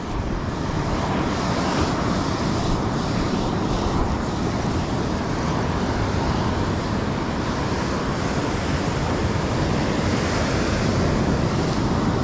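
Waves breaking and washing up a sandy beach close by, a steady rushing noise, with wind on the microphone.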